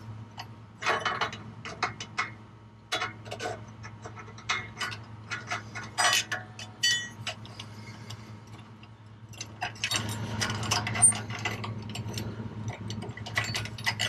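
Irregular metal clinks and taps of an exhaust hanger bracket and U-clamp being slid and fitted by hand onto a car's tailpipe, over a steady low hum.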